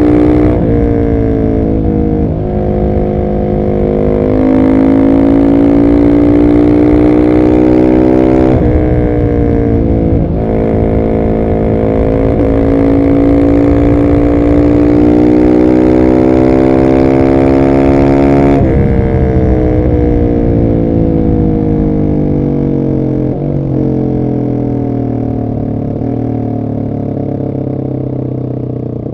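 Husqvarna 701 SM's single-cylinder engine through a de-catted Arrow exhaust, pulling hard under full throttle with the pitch rising steadily through the gears and dropping sharply at each shift. About two-thirds of the way in the throttle closes and the pitch falls away slowly, with a few small steps as it slows and shifts down.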